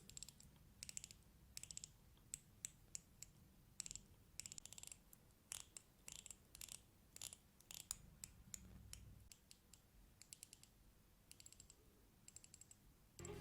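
Ratchet Ring, a fidget ring whose band turns in one direction only, being rotated and clicking: faint, quick runs of small ratchet clicks with short pauses between them.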